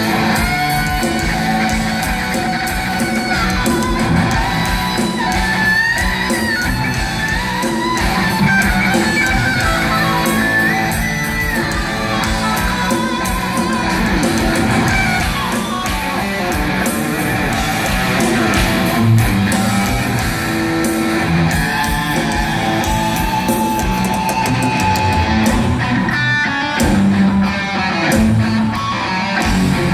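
Heavy metal band playing live, with distorted electric guitars, bass guitar and drums. Recorded from inside the crowd in a large hall.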